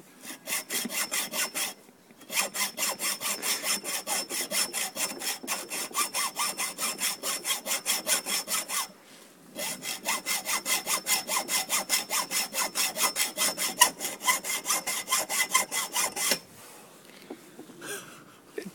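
Hacksaw cutting into a metal bar with quick, even back-and-forth strokes. It pauses briefly twice, about two and nine seconds in, and stops about two seconds before the end.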